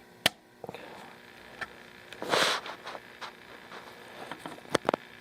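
Sharp metallic clicks and knocks from rifle parts being handled, one just after the start and several near the end, with a brief scraping rustle about two and a half seconds in.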